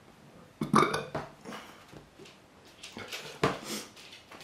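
A man's short burp-like throat sounds and breaths in two bouts, about half a second in and about three seconds in, as he reacts to the burn of hot chillies.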